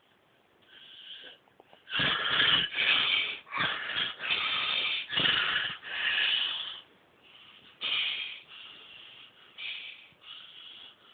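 Snoring: a run of about seven loud, quick snoring breaths starting about two seconds in, then softer, more spaced snores near the end.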